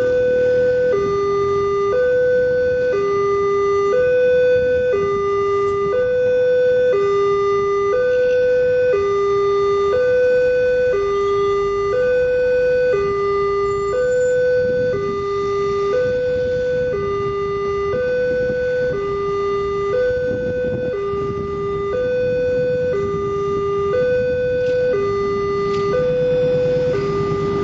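Multech railway level-crossing warning alarm sounding an electronic two-tone signal that switches between a higher and a lower tone about every second, the warning that a train is approaching the crossing. Near the end the low rumble of the arriving train rises underneath.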